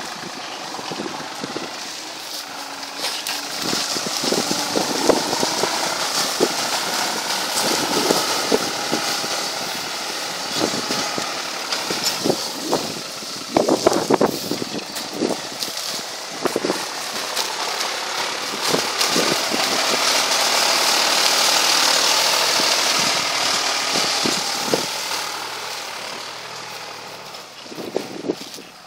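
Tractor engine running steadily as it pulls a mounted plough through dry rice stubble, with irregular crackles and knocks from the plough and straw, the loudest cluster about halfway through.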